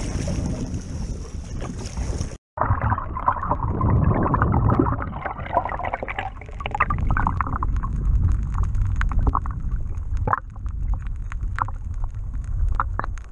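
Wind and water noise as a kayak is paddled, broken by a sudden cut about two seconds in. After the cut comes muffled underwater sound through a camera: water rushing and gurgling, with many scattered sharp clicks.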